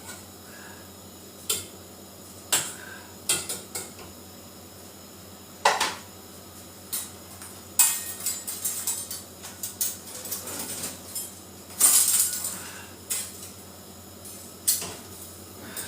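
Kitchen clatter: utensils and dishes knocking and clinking at irregular intervals. The strikes come thickest in the middle, with the loudest clatter about twelve seconds in.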